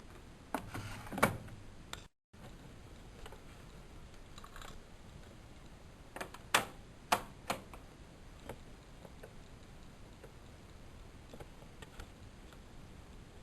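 A few sharp mechanical clicks from the Lloyds 825 washing machine being handled: two about half a second and a second in, then four in quick succession about six to seven and a half seconds in, followed by faint light ticks. There is no steady motor or water sound.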